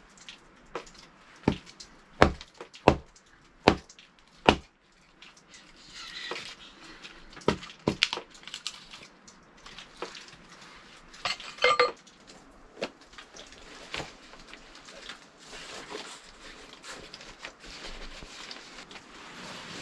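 Camp cookware being handled: a run of about six sharp, evenly spaced knocks in the first few seconds, then scattered knocks and clinks, with one ringing metallic clink near the middle.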